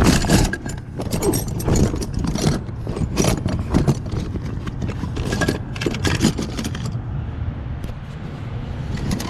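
Loose metal parts and tools clattering and scraping in repeated short knocks and jangles while being handled, over a steady low rumble.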